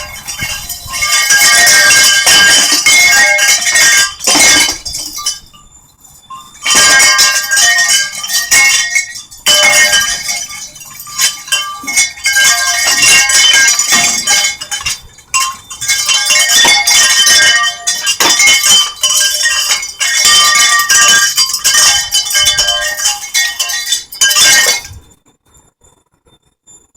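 Chimes ringing and clinking together, with many overlapping bell-like tones struck again and again. There is a short lull about six seconds in.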